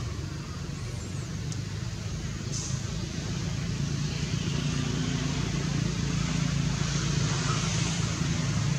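A steady low engine hum, growing louder from about halfway through.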